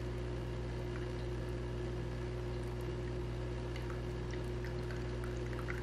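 Water trickling steadily in a small tabletop stone fountain, with a few faint drips, over a steady low hum.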